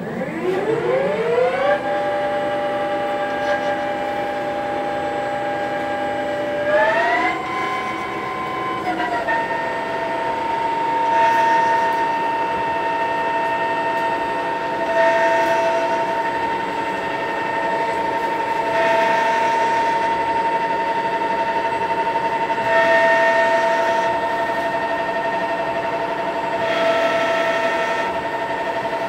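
Lathe spindle and gearbox winding up to speed with a rising whine over about two seconds, stepping up in pitch again around seven seconds in, then running at steady speed. The lathe is in an automatic taper-threading cycle on a 3-inch pipe, with a louder stretch of noise about every four seconds as each threading pass cuts.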